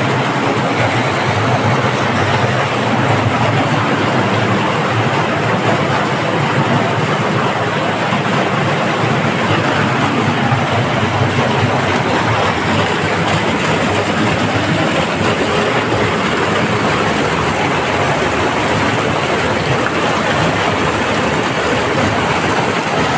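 Loud, steady rushing noise with no breaks or rhythm.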